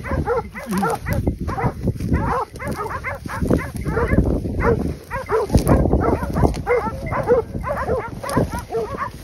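Hunting hounds baying, many short barks repeating and overlapping throughout, over low rumbling noise: the dogs holding a group of wild boar at bay.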